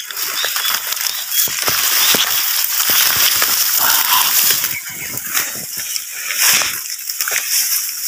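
Tall dry grass rustling, with many sharp crackles, as someone walks through it, the stems swishing against the microphone and crunching underfoot.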